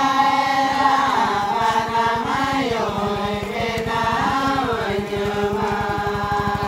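A voice chanting a slow traditional song, with long held notes that rise and fall, in the manner of a Santali wedding chant.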